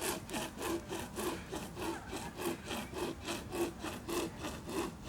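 Hand saw cutting through a dense birch log, back-and-forth strokes rasping steadily at about three a second.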